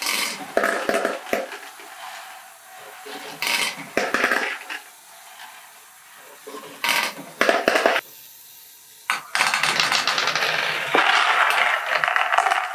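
Small plastic balls clattering and rolling inside a turning LEGO Great Ball Contraption screw lift built from transparent orange curved panels. The clatter comes in short bursts for the first eight seconds, then runs on steadily from about nine seconds in.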